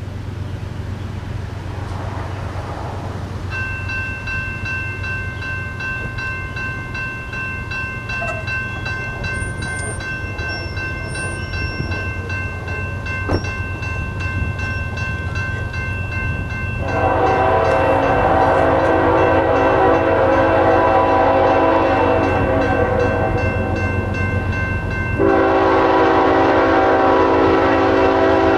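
A crossing's electronic bell starts ringing a few seconds in with a rapid repeating ding. From about 17 seconds in, a diesel locomotive's five-chime K5HL air horn sounds a long chord over the bell, growing louder about eight seconds later.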